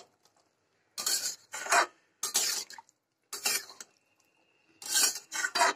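Wooden spatula stirring and scraping through a thick pea curry in a metal kadai: about six short, separate scraping strokes.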